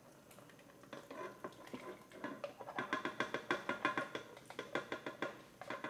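A plastic slotted spoon clicking and scraping against a glass bowl in a run of short, irregular taps as meatballs are scooped out and tipped into a pot of soup.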